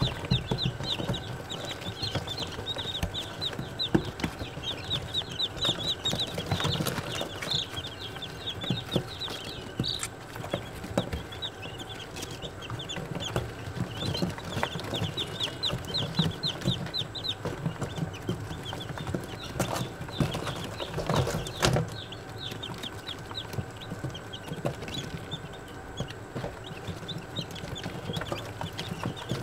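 A group of day-old chicks peeping nonstop, many short high-pitched peeps overlapping in quick succession, with a few sharp knocks here and there.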